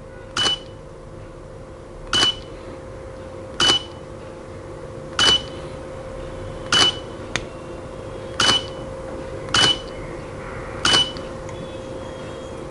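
Sony A7R3 shutter firing again and again from a shutter release trigger, one sharp click about every one and a half seconds, eight in all, over a faint steady hum.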